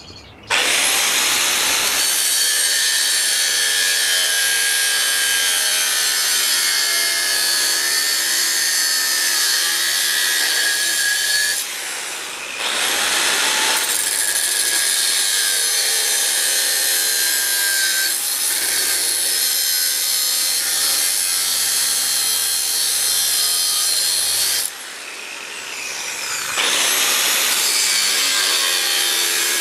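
Angle grinder with a thin cut-off disc cutting through steel plate, a loud, steady whining grind that eases off twice briefly before biting in again.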